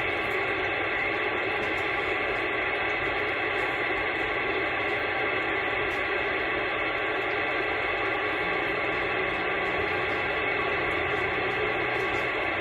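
CB radio receiver static hissing steadily through the rig's speaker on an open channel, with the squelch open and no station coming through.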